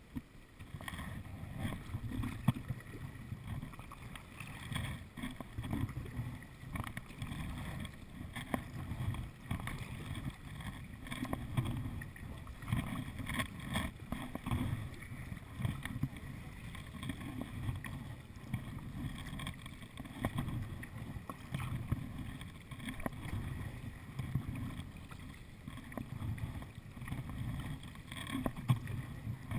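Tandem kayak paddling: paddle blades dipping and pulling through the water with splashes and drips, and water lapping on the hull, over a low uneven rumble that swells and fades every second or so.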